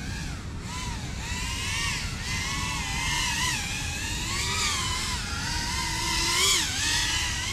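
FPV quadcopter's brushless motors whining in flight, the pitch rising and falling with the throttle, over a steady low rumble. It grows louder with a quick swing in pitch about six and a half seconds in.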